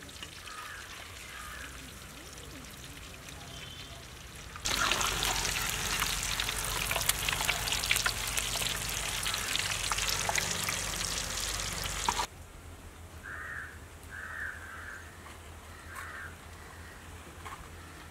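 Boiled eggs frying in hot oil with turmeric and red chilli powder in a black iron kadai, a crackling sizzle. It is faint at first, turns loud and dense about five seconds in, and cuts off suddenly about twelve seconds in. After that a few short chirps sound over a quieter background.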